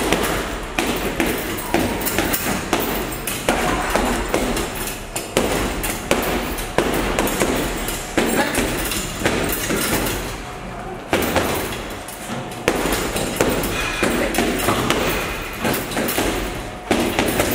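Boxing gloves landing punches on a hanging heavy bag: a string of sharp thuds coming in quick flurries, with short gaps between combinations.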